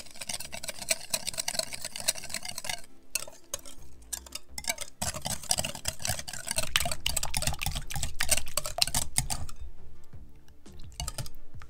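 Wire whisk beating a runny batter in a glass bowl: fast, steady clicking and swishing of the wires against the glass, with a short pause about three seconds in. The whisking stops about ten seconds in as the whisk is lifted out.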